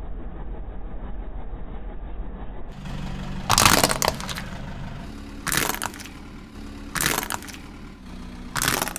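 Plastic cracking and breaking under a car tyre: four sharp cracks, about a second and a half apart, over a low steady hum.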